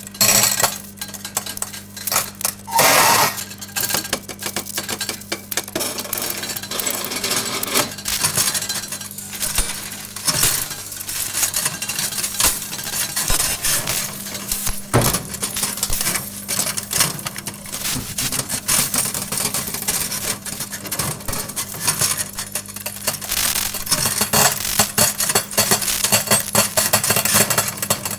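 Several metal forks inside a running microwave oven: dense, irregular crackling and metallic clicking, with a louder burst about three seconds in, over the oven's steady low hum.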